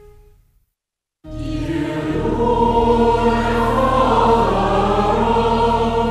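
Earlier music fades away, there is a brief gap of silence, and then a choir comes in abruptly, singing long held chords.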